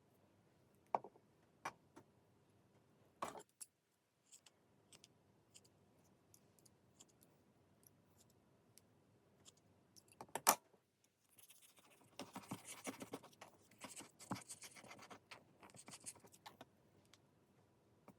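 Paper being handled on a work surface: a few sharp taps and clicks, then several seconds of scratchy rubbing of paper.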